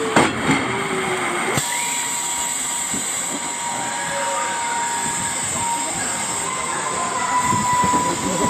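Steady rushing hiss of water running down the fibreglass chute of a steep raft water slide. A faint steady whine sounds over it from about a second and a half in until near the end.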